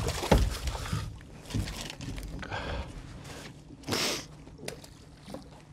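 Scattered knocks, clicks and scrapes of hands-on work with pots and catch on a small fishing boat's deck, with one short, louder rush of noise about four seconds in.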